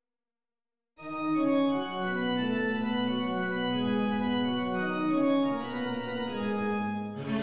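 Positive organ (small chamber pipe organ) playing slow, sustained chords that move from note to note, entering about a second in after silence. Near the end a rushing, noisy sound joins it.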